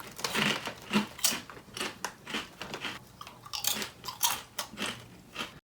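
Someone chewing potato chips: an irregular run of crisp crunches, a few each second, stopping abruptly near the end.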